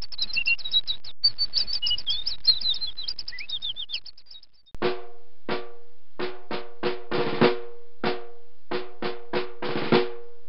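Songbirds chirping and twittering in quick high trills, fading out about four and a half seconds in. Then a snare drum plays a marching cadence of single strokes and two short rolls.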